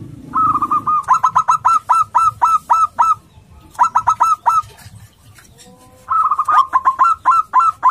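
Male native-strain zebra dove (perkutut lokal) singing: three runs of quick, clipped cooing notes with short pauses between. The first run is the longest, and the last carries on to the end.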